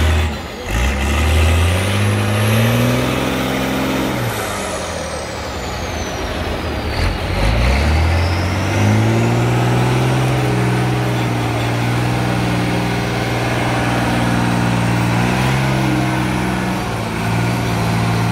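Trial truck's engine revving under load as it works through deep mud: the revs climb, drop back and climb again in the first several seconds, then are held high and fairly steady.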